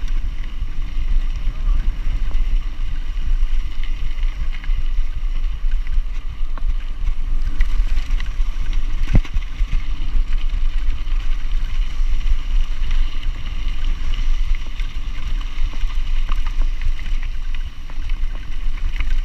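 Mountain bike riding a dusty dirt track, heard through a chest-mounted camera: steady wind rumble on the microphone with tyre and rattle noise, and an occasional sharp knock over a bump, one clear one about halfway through.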